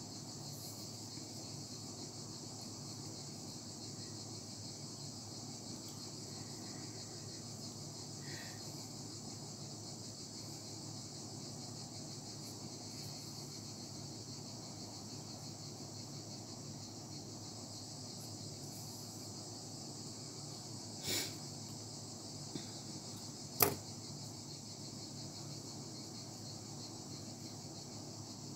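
Steady, even high-pitched hiss of background noise, with two short clicks about three-quarters of the way through.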